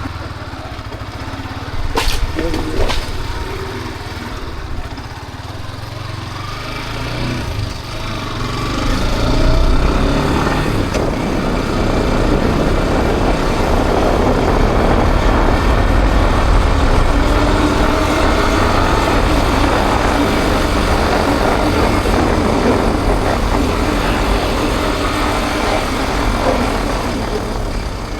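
Motorcycle engine running with wind rushing over the microphone while riding. It grows louder from about eight seconds in and stays loud, after two sharp clicks a couple of seconds in.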